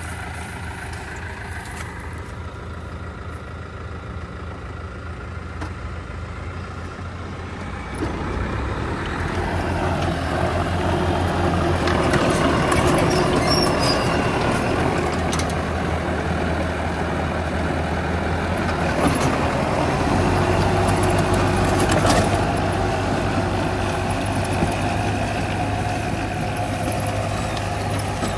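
Tractor diesel engine running with a rotary tiller and bean-planting rig behind it. About eight seconds in the sound gets louder and a churning noise joins the engine as the tiller engages and starts working the soil, and it keeps running steadily as the rig moves along the row.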